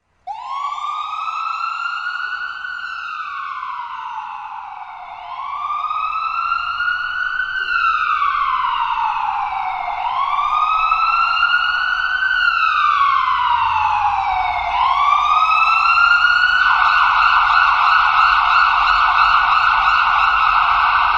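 Ambulance siren in a slow wail, its pitch rising and falling about every five seconds, getting louder. Near the end it switches to a fast yelp.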